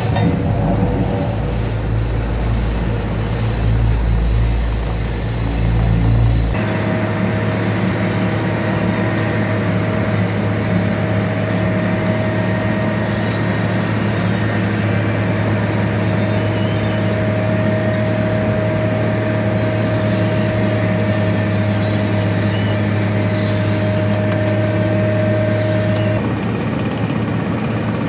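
Diesel engine of a Vögele tracked asphalt paver running steadily at constant speed while it lays hot asphalt. The hum changes abruptly about six seconds in and again near the end.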